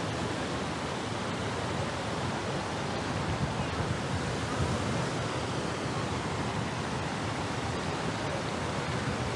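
Fountain water splashing into a pool: a steady, even rush of falling water.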